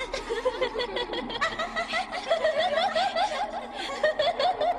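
High-pitched laughter: a quick run of short, rising 'ha' notes, several a second.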